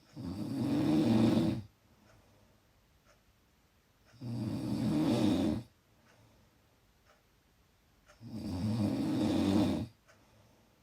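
Loud snoring: three long snores about four seconds apart, each lasting around a second and a half, with quiet breathing gaps in between.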